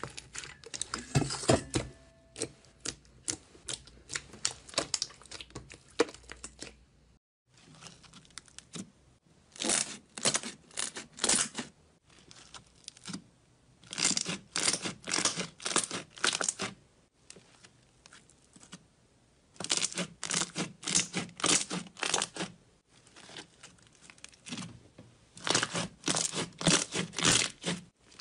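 Slime being squeezed and pressed by hand, giving bursts of sharp popping and crackling clicks from air pockets in the slime, in clusters of one to three seconds with quieter pauses between.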